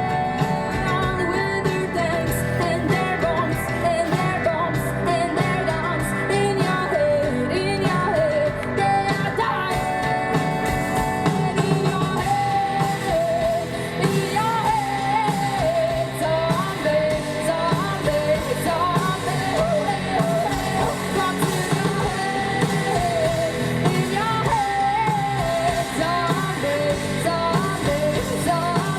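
Live rock band playing a song, a voice singing over guitar, bass and drums.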